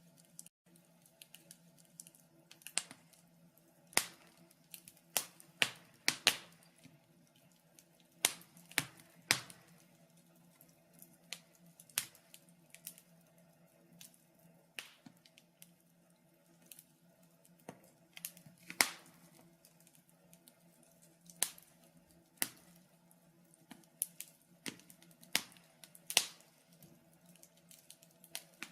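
Wood fire crackling in a fireplace: irregular sharp pops and snaps, some much louder than others, over a steady low hum.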